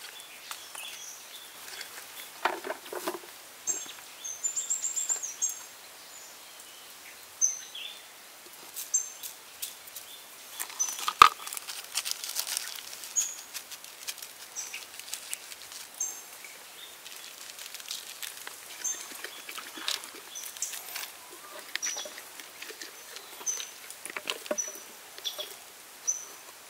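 Small birds chirping in short repeated calls, over soft clicks and rustles of hands handling a raw duck, with one sharper knock about eleven seconds in.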